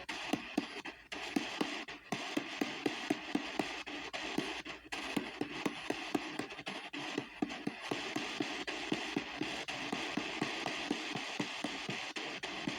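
P-SB7T spirit box sweeping the AM band at 250 ms per step: choppy radio static broken by a click about four times a second, with brief snatches of broadcast sound between steps.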